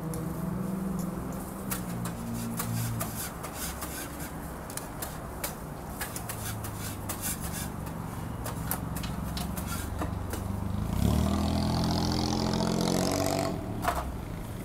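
Steady street-traffic engine hum with repeated metal clicks and scrapes of tongs on a flat-top griddle. About eleven seconds in, a vehicle passes close by, louder for about two seconds.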